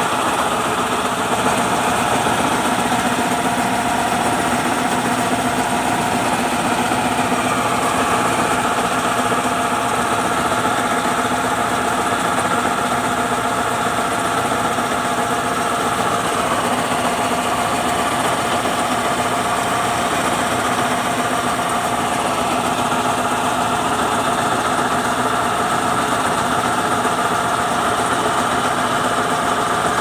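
Combine harvester running steadily during rice harvesting, its engine and machinery giving a constant hum with a steady whine. Harvested rice grain pours from the auger spout onto the pile in the grain tank.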